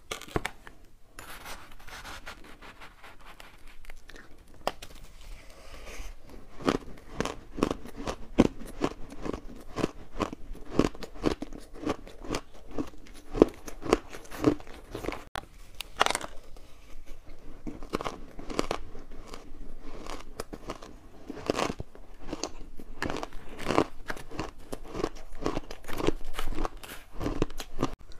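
Crunching of matcha-powder-coated refrozen ice as a metal spoon digs into it and bites break it, in dense irregular crunches that thicken a few seconds in.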